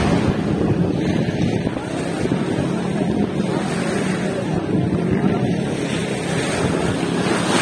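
Wind buffeting the microphone over choppy seawater, with a low, steady boat-engine drone underneath.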